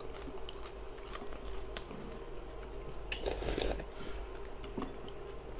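Quiet eating noises: a few small clicks and soft mouth sounds as a wooden spoon is dipped into a glass bowl of borscht and eaten from, over a faint steady hum.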